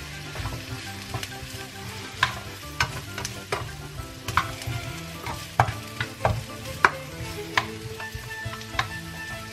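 Sliced chorizo and chopped shallot sizzling in olive oil in a non-stick frying pan, stirred with a plastic slotted spatula that clicks and scrapes against the pan every half second or so.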